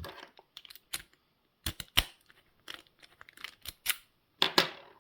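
Scattered sharp clicks and taps of small metal lock parts being handled, the loudest about two seconds in, with a short rustling scrape near the end.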